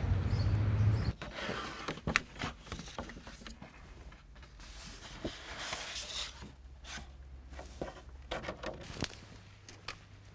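Sheets of paper rustling, with scattered small clicks and knocks as they are handled. A low outdoor rumble runs for about the first second.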